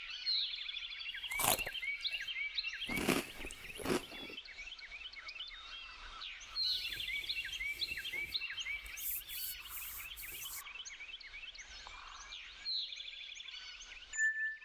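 Woodland birdsong ambience: many small birds chirping and trilling at once. A few rustling, crunching noises come between one and four seconds in, and a brief hissing rustle around nine to ten seconds.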